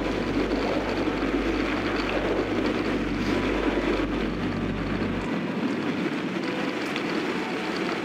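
Mountain bike tyres rolling fast on a dirt and gravel road on a long downhill: a steady rumbling noise.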